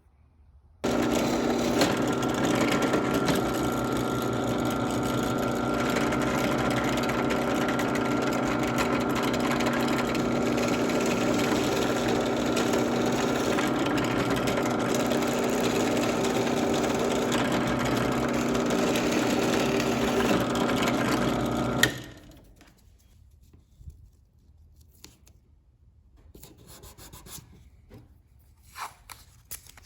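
Jigsaw running steadily as it cuts slots in 3/4 inch plywood, stopping abruptly about 22 seconds in; faint handling noises follow.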